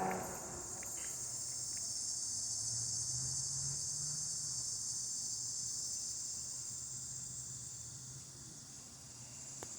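A chorus of summer cicadas, a continuous high buzzing drone. It swells over the first few seconds, then slowly fades toward the end as one group dies down.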